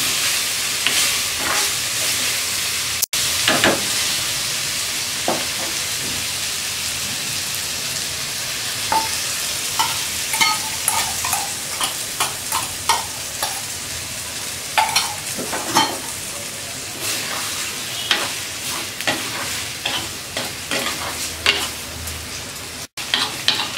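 Cauliflower and egg frying in an earthenware pot, with a steady sizzle. A steel spoon stirs and scrapes against the pot, giving scattered clicks that come more often in the second half.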